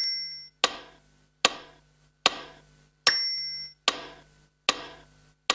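Ticking sound effect: sharp ticks about one every 0.8 s, each fading with an echo. Every fourth tick carries a short high ringing tone.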